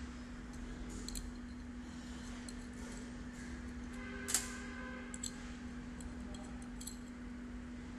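Light metallic clicks and ticks as a steel sealing-mold plate, its small screws and an Allen key are handled, with one sharper clink about four seconds in that rings briefly.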